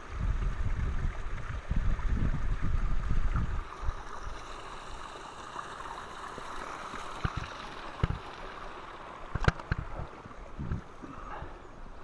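Wind buffeting the microphone for the first few seconds. Then a steady rushing of a mountain stream, with a few sharp clicks of footsteps on the stone path.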